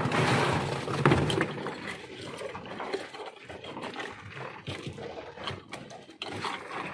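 Ice being scooped from a bucket and packed into a tuna's belly cavity in a foam fish box: a clatter of scraping, clinking and rustling, loudest in the first second or so.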